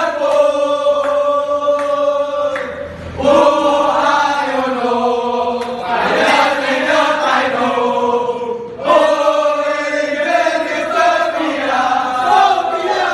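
A group of voices chanting a song in unison, in long held phrases with brief breaks about three and nine seconds in.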